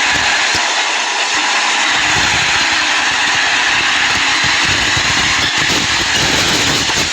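A vehicle engine running steadily under a loud rushing noise, with uneven low rumbling from about two seconds in.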